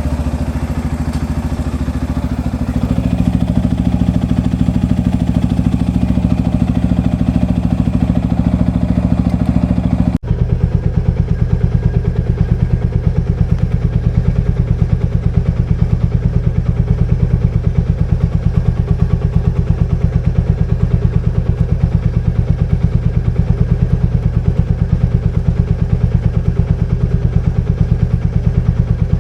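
Royal Enfield Meteor 350's single-cylinder engine running steadily at idle with an even thumping pulse. About ten seconds in the sound breaks off for an instant and comes back duller.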